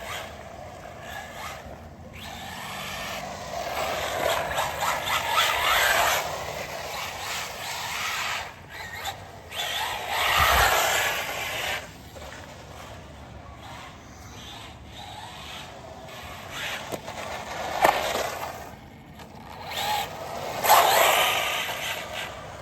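Electric RC car driving in bursts: the motor whine rises and falls with the throttle over the noise of the tyres on the ground. Near the end there are a couple of sharp knocks.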